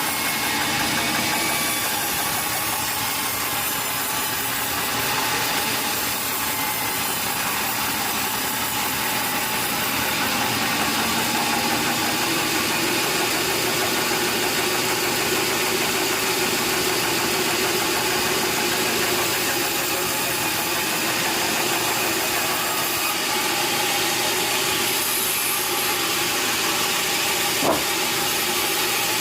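Sawmill machinery running steadily, an even mechanical noise with a faint steady hum, and a single sharp knock near the end.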